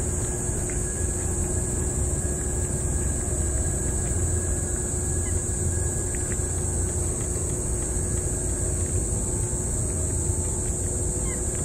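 A cat licking and chewing wet food from a metal bowl close by, heard as a few faint clicks and smacks, over a steady low rumble and a high steady hiss.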